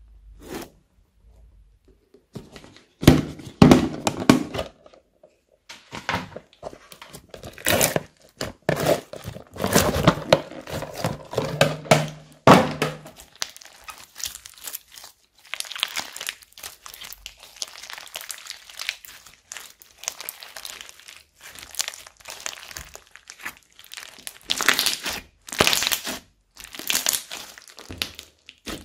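Hands pressing, stretching and folding thick slime mixed with sprinkles, making irregular squishing and crackling noises in bursts with short pauses between handfuls, the loudest a few seconds in.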